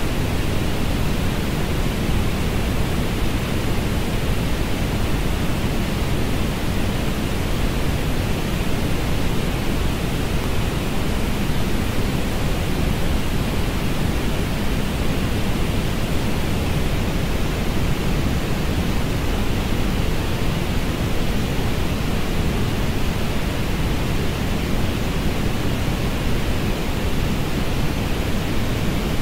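Steady synthetic orange noise: an even, unchanging hiss, heavier at the low end and softer in the highs.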